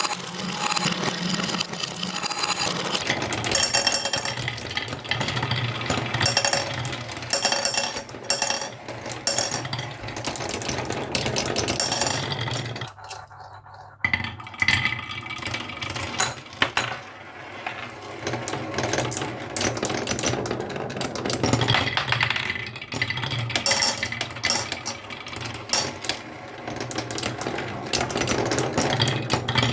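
Marbles and toy trucks rolling and clacking down a wooden HABA marble-run slope: a continuous rattling clatter of many small knocks, with a short lull about thirteen seconds in.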